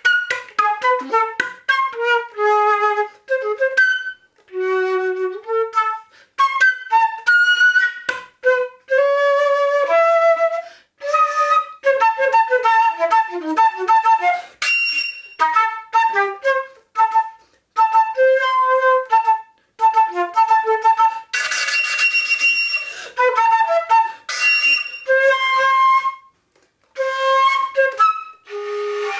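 A single wind instrument playing contemporary music in short, broken-up notes with silences between them. A breathy, hissing passage comes about three quarters of the way through.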